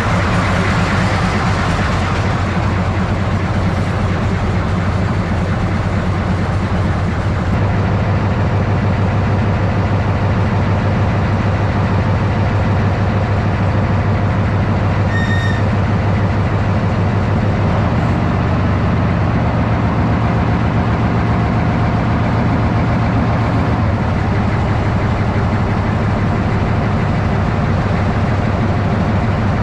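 TU7A narrow-gauge diesel locomotive engine running steadily with a deep, even drone. A single brief high-pitched beep sounds about halfway through.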